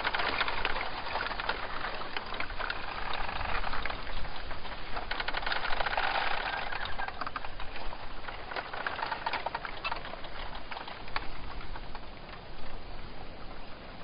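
Rain pattering steadily, a dense crackle of many small drops with a low rumble underneath, easing slightly near the end.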